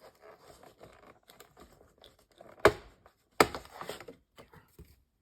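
A small plastic watercolor paint box being worked open by hand: faint rustling and handling ticks, then two sharp snaps about three quarters of a second apart, a little past halfway through.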